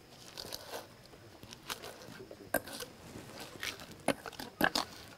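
Bottom of a glass jar crushing roasted dried fish and chillies against a steel bowl: irregular clicks and light crunches.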